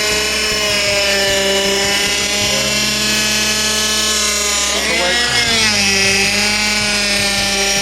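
Honda Accord's power steering pump whining steadily with the engine running, its pitch dipping and shifting about five seconds in as the steering wheel is turned. The fluid in the system is still foaming with air.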